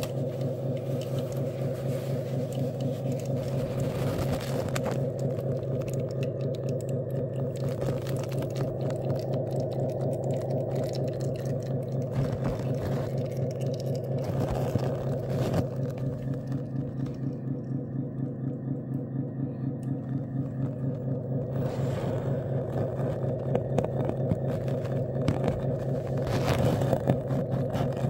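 Small electric hydraulic pump of an RC dump truck running with a steady, rapidly pulsing hum, with a few short knocks now and then.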